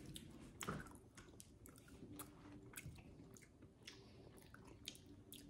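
Faint chewing and crunching of a piece of crunchy mint dark chocolate: a scatter of small, irregular crunchy clicks.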